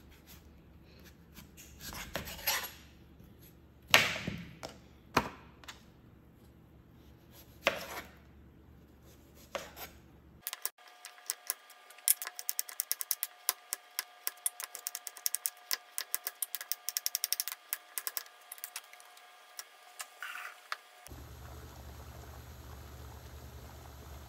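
A large kitchen knife cuts through a raw taro root on a cutting board in half a dozen separate strokes, each ending in a knock on the board. Midway, a fast run of sharp clicks over a few steady tones takes over. Near the end it gives way to the steady hiss of a steaming saucepan of water on the stove.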